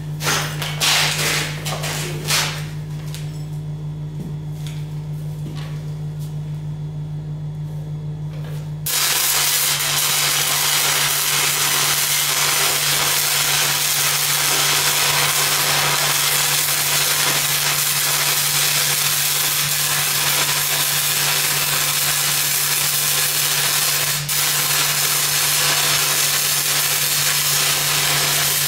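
The low, steady hum of an engine-driven welder's engine, with a few handling knocks at the start; about nine seconds in, a stick-welding arc strikes and a loud, steady crackling hiss runs on as a 5/32-inch cellulose electrode lays a downhill cap pass on steel pipe.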